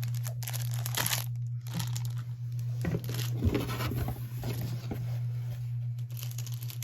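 Paper and packaging crinkling and rustling in irregular crackles as craft items are handled and unwrapped, over a steady low hum.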